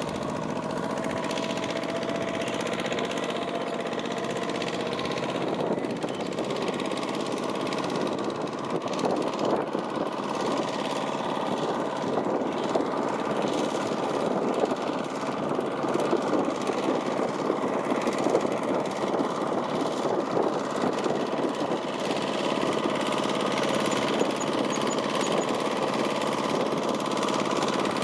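Single-cylinder diesel engine of a Kubota mini tractor running steadily with a rapid knocking rattle, which turns rougher and more uneven about six seconds in.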